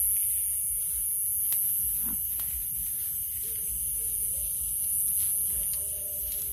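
Steady high-pitched chorus of night insects, over low handling and rustling noise from walking through vegetation. A faint wavering whine comes in from about halfway, fitting mosquitoes swarming close by.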